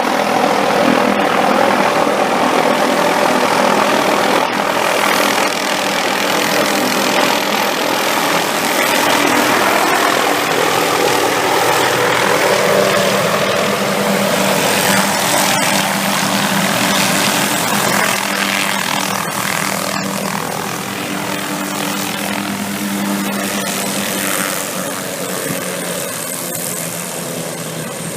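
Helicopter running steadily, its rotor and engine noise gradually fading over the last several seconds.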